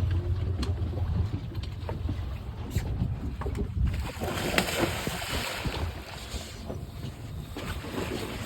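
Wind buffeting the microphone aboard a boat at sea, with water noise around the hull. About halfway through, a louder even rushing hiss sets in.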